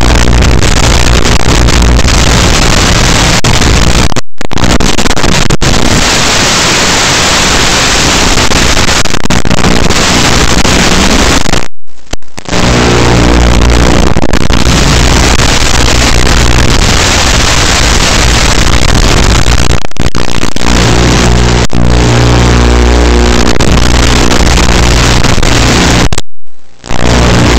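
Small vehicle's motor running, recorded very loud and distorted by a camera riding on the vehicle, with brief dropouts about four, twelve and twenty-six seconds in.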